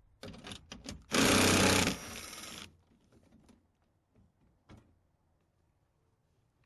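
A few clicks, then a small electric motor or power tool runs in one loud burst of about a second and carries on more quietly for nearly another second before stopping. One more click follows a couple of seconds later.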